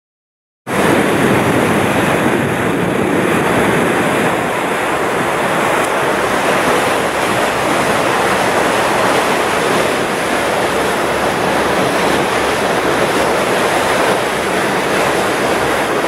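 Steady rush of wind and water heard from a boat under way, with wind buffeting the microphone; it starts abruptly under a second in.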